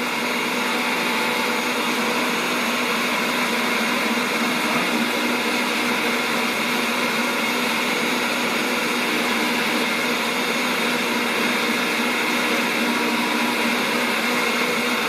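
Kenwood Cooking Chef Gourmet stand mixer running steadily at high speed, beating egg whites and sugar into meringue in its bowl.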